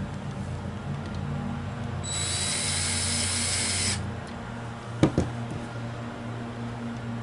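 Adjusting and clamping the lever cap on a cast-iron Stanley No. 7 hand plane: a steady high hiss for about two seconds, then two sharp metal clicks in quick succession as the lever cap is locked down.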